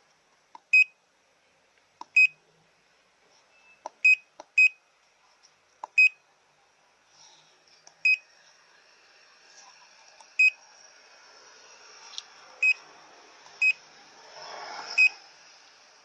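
Autel MaxiDiag Elite handheld OBD scan tool beeping at each key press while trouble codes are erased: about ten short, high, identical beeps at irregular intervals, each just after a faint button click.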